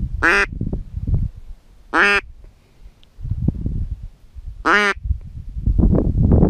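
Hunter's duck call blown in short single quacks about every two seconds, to draw ducks in. A low rumbling noise on the microphone runs between the calls.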